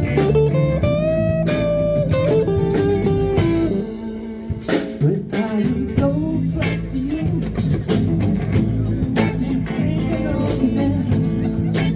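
Live blues band playing, with electric guitar lead lines bending and sustaining over bass and drums. The band thins out briefly about four seconds in, then a few drum hits bring the full band back with a steady beat.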